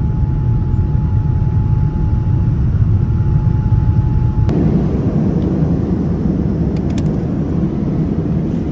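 Steady rumble of a Boeing 787's engines and rushing air heard inside the passenger cabin. A faint steady tone runs under it and stops suddenly about four and a half seconds in, where the rumble turns brighter.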